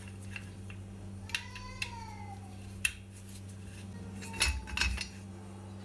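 Metal clicks and clinks of an Allen key on the cylinder-head screws of an ABAC B2800 air-compressor pump, then louder knocks near the end as the aluminium head is worked loose and lifted off. A short tone rising and falling about a second and a half in, over a steady low hum.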